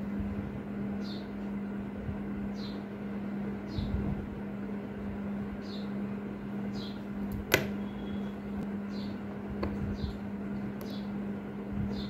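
Steel tweezers clicking on a small metal part of a watch movement: one sharp click about seven and a half seconds in and a fainter one about two seconds later, over a steady low hum.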